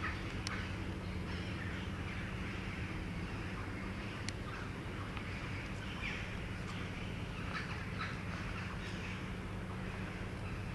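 Crows cawing faintly and off and on: a few harsh calls about half a second in, around six seconds, and a cluster near eight seconds, over a steady low hum. A single sharp click about four seconds in.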